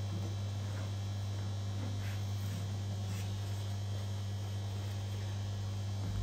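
Steady low electrical mains hum. A cloth rubs faintly against the inside of a glass aquarium a few times about two to three seconds in.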